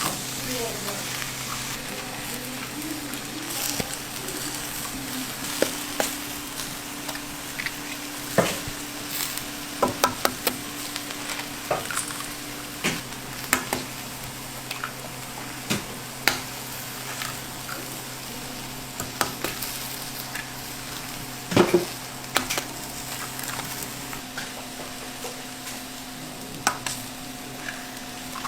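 Food sizzling as it fries on a hot pan or griddle, with frequent clicks and scrapes of a utensil stirring it, the loudest a little past the middle. A faint steady hum runs underneath.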